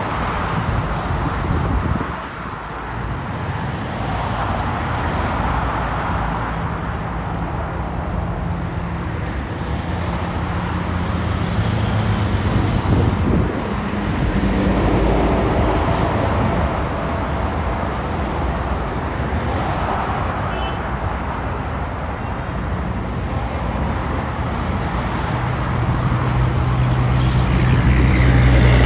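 Continuous street traffic: cars passing one after another with tyre noise and engine hum, and a heavier low engine drone swelling near the end as a larger vehicle approaches.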